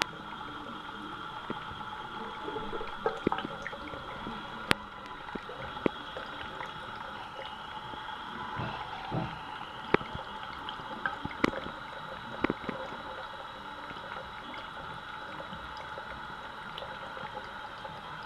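Steady running water while a cat drinks, with scattered soft clicks over it.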